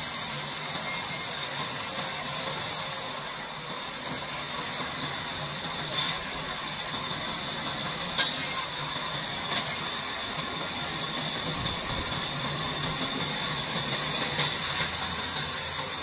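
Sawmill band saw running and cutting through a timber plank, a steady high hiss from the blade in the wood. A few sharp knocks stand out over it.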